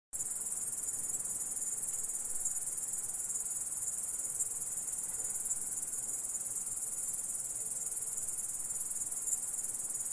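Grasshopper stridulating: a steady, very high-pitched buzzing trill that starts abruptly just after the beginning and runs on without a break.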